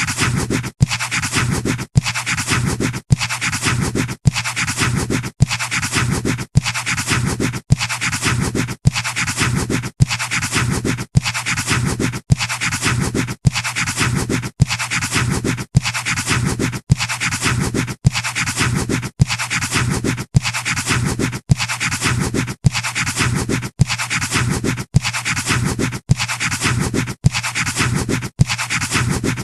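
Pencil scratching on paper in a steady rhythm of even strokes, about four every three seconds, each broken by a brief silent gap, over a low steady hum.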